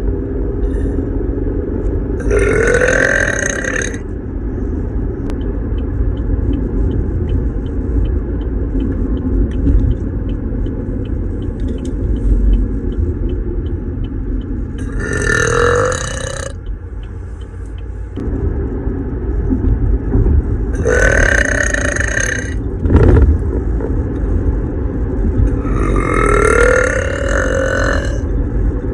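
A young woman burping loudly four times, each burp lasting about a second and a half and rising slightly in pitch at its start, over a steady low rumble.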